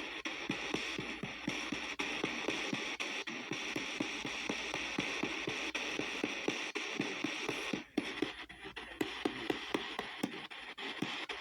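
P-SB7T spirit box sweeping the AM band at 250 ms: a steady hiss of static with snatches of radio, chopped by a sharp click about four times a second as it steps between stations. The hiss briefly drops out about two-thirds of the way through.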